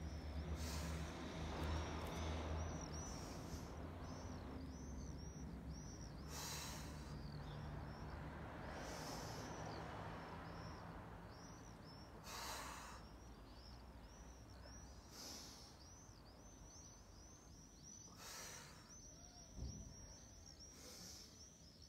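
A person breathing forcefully in and out, one breath about every three seconds, over steady high chirping of small birds. A low hum fades out around the middle.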